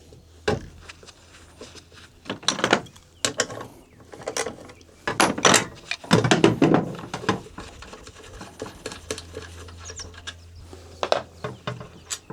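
Irregular metal clicks, clanks and knocks of hand tools working on the metal parts of a corn planter's finger pickup seed meter as it is taken apart. The meter had jammed and would not turn.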